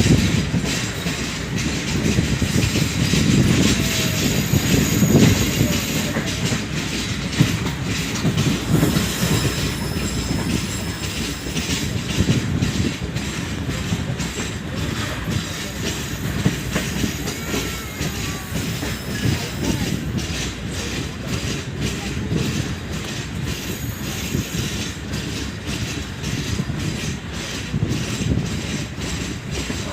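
Pak Business Express passenger coaches running on the line: a steady rolling rumble with rapid clacking of wheels over the rails, and thin high wheel squeals here and there.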